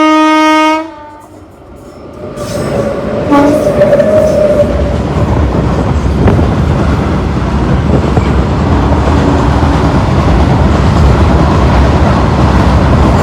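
Goods train horn holding one note that cuts off about a second in. Then the freight train comes up and runs past close by: a loud, steady rumble of wagons on the rails that builds over a couple of seconds and keeps on.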